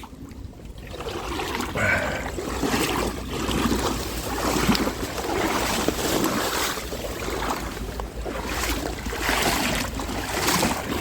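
Someone wading through a shallow river, water sloshing and splashing with each step.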